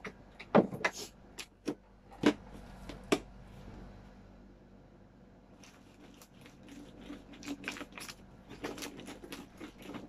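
A few sharp clicks and knocks of a plastic container being handled, then from about six seconds in a quick, rattling run of folded paper raffle slips shaken inside a clear plastic food container with a snap-lock lid.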